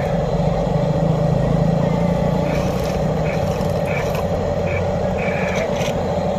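An engine runs steadily, with a pulsing low rumble and a constant humming tone, while short high blips sound now and then.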